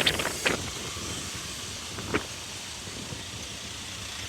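Steady road and wind noise from riding on a motorbike in traffic, with one short sharp sound about two seconds in.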